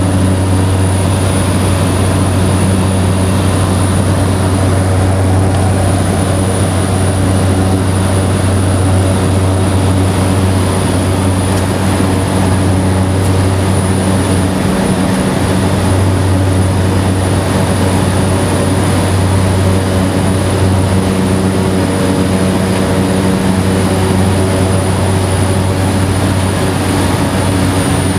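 Cessna 208B Caravan's Pratt & Whitney PT6A turboprop engine and propeller in flight, heard inside the cabin: a steady, loud propeller drone with a thin, high turbine whine above it.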